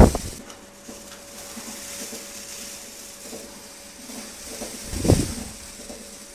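Electric rotating cow brush running with a steady hum, starting about half a second in, while a calf rubs its head against it. A dull knock comes about five seconds in.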